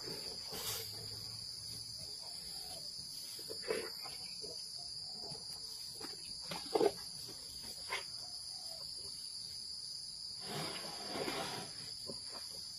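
Asian elephant feeding on sweet potatoes: a few short crunches and rustles, the loudest about seven seconds in, over a steady high-pitched insect chorus.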